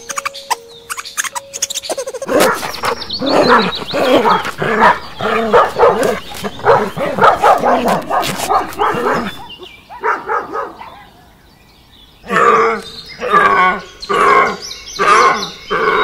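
Dogs barking loudly and repeatedly, about two barks a second, from a couple of seconds in. After a short pause near the end, another run of loud animal calls follows.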